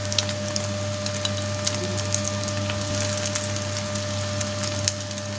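Egg-coated chicken shami kababs shallow-frying in hot oil: a steady sizzle with small crackles and pops, over a steady low hum.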